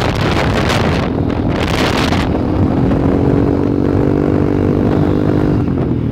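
Wind rushing over the microphone on a moving small motorcycle. About two seconds in the wind eases, and the motorcycle's engine comes through as a steady hum until near the end.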